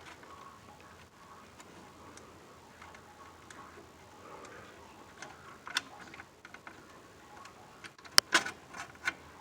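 Scattered small clicks and taps as wires and their push-on connectors are handled and pulled off a furnace control board, with a few sharper clicks near the end.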